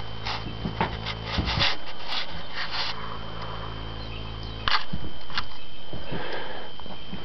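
Irregular rubbing and scraping noises with a few sharper clicks, over a steady low hum.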